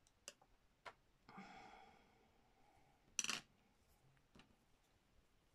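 Near silence with a few faint clicks and taps as a pencil and water brush are handled over a craft mat, and one louder sharp knock a little past three seconds in.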